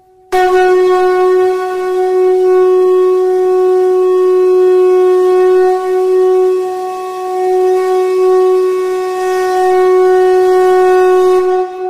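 A loud, steady horn-like tone on one unchanging pitch with a clear series of overtones. It starts abruptly just after the start, is held for about eleven seconds with short dips in level about halfway through, and falls away near the end.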